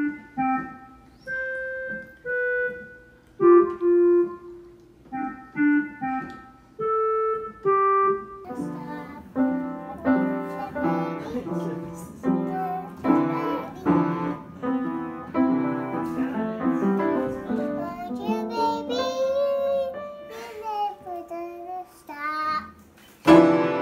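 Piano notes pressed one or two at a time, slow and uneven, then denser, clumsy clusters of notes played on an upright piano. Near the end a young child's voice sings or calls along, and a brief loud burst of music starts at the very end.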